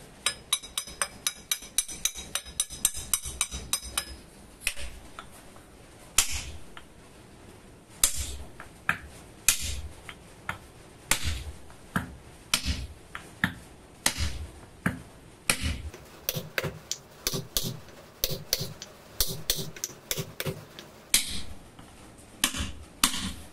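Hand hammer working a lathe spindle bearing: first a quick run of light, ringing taps, about five a second, metal on the steel bearing housing. Then single heavier blows, about one a second, on a wooden block set on the spindle end, driving the spindle through the bearing housing and pulley.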